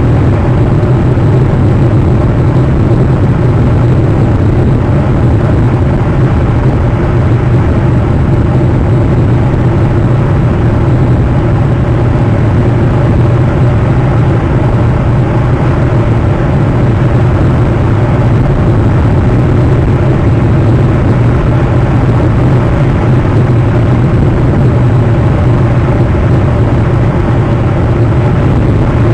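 Steady, unchanging low rumble with a noisy hiss above it, loud throughout and with no distinct events.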